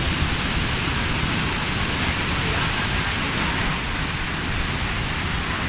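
A waterfall's water rushing in a steady, unbroken roar of noise.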